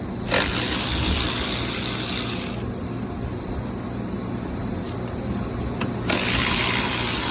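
Ratchet wrench clicking rapidly as it backs out fasteners on a car door's latch and handle assembly, in two spells of about two seconds each.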